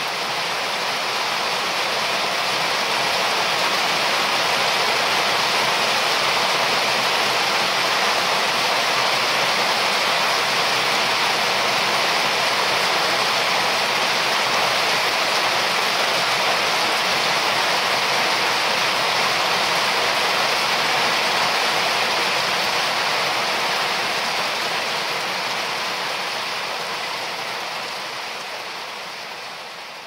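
Steady heavy rain falling on the forest canopy and ground, an even hiss, fading out near the end.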